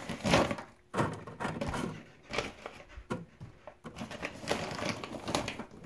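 Frozen potato fries dropped and shifted on a wire-mesh air fryer tray: a scatter of light, irregular clattering knocks.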